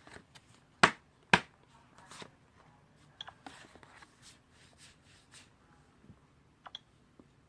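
Scattered sharp clicks and taps: two loud ones about half a second apart about a second in, then lighter, irregular clicks.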